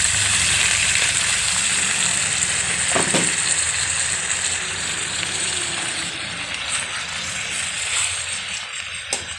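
Raw chicken pieces sizzling loudly in hot oil with sautéed garlic. The sizzle starts suddenly as the chicken goes in and slowly dies down as the pan cools, with a utensil knocking in the pan a couple of times.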